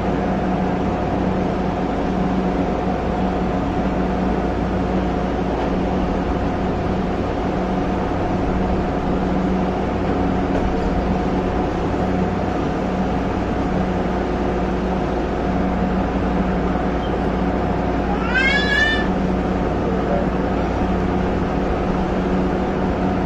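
Mexico City light-rail train running, heard from the driver's cab: a steady drive-motor hum and rolling rumble. About eighteen seconds in, a short rising squeal sounds once.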